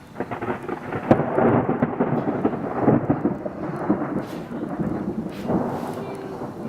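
Thunder: a clap that starts suddenly with a sharp crack about a second in, then goes on rumbling and crackling while it slowly fades.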